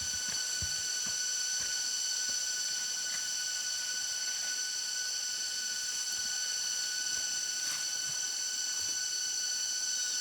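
Steady high-pitched insect drone, typical of a cicada chorus, holding at an even level with a few faint low knocks in the first second.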